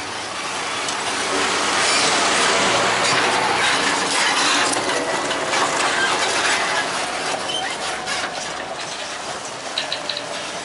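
John Deere 6150R tractor's six-cylinder diesel running as it pulls a loaded silage trailer past close by. The sound is loudest a couple of seconds in as it passes, then fades as it pulls away.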